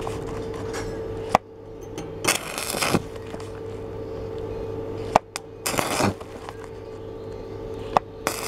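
Stick (arc) welder laying short bursts of weld, three crackling arcs each under a second long, with sharp clicks between them, over a steady electrical hum. Stitching in short bursts like this is how thin 2.2 mm steel is welded over a large hole without burning through.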